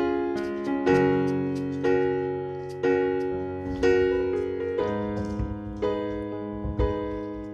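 Background music: soft electric piano playing slow chords, a new chord about once a second, each fading away.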